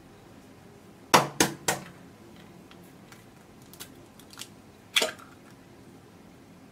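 An egg being cracked by hand: three sharp taps of the shell against a hard edge in quick succession, a few faint ticks, then one more sharp crack as the shell breaks open over an egg separator.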